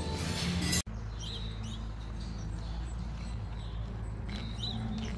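Small birds chirping in short, scattered calls over a steady low background rumble outdoors.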